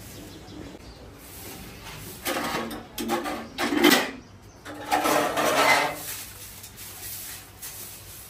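Short-handled straw broom sweeping a tiled floor: a run of brushing swishes and scrapes from about two to six seconds in, the loudest near four seconds.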